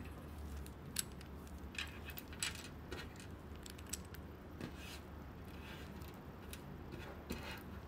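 Small plastic speedcube pieces of a magnetic Meilong 4x4 clicking and scraping as they are handled and slid into place on the partly rebuilt cube: scattered light clicks, the sharpest about a second in.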